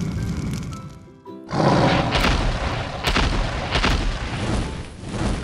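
Heavy booming footstep sound effects for a giant dragon, over background music. A deep rumble fades to a brief lull about a second in, then the booms return with three sharp hits.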